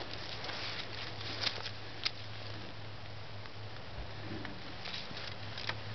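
Cord being wrapped around two wooden sticks by hand over dry leaves: soft scattered rustling with a few short, sharp ticks, over a steady low hum.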